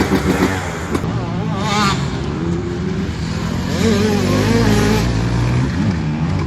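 Honda CR125's single-cylinder two-stroke engine revving up and down under riding, its pitch climbing and dropping again several times with throttle and gear changes.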